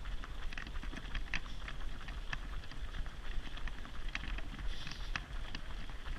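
Running footsteps of a pack of runners on asphalt, an irregular patter of many feet, over a steady low rumble.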